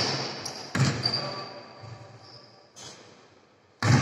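Basketball bouncing on an indoor court: three separate thuds, the loudest near the end, each with a short echo from the hall.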